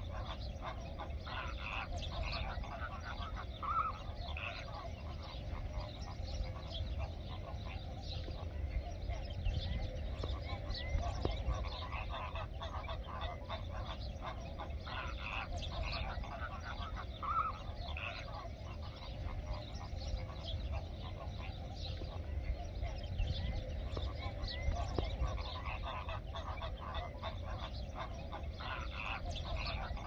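A flock of flamingos calling: many short, overlapping calls in a steady din with no let-up.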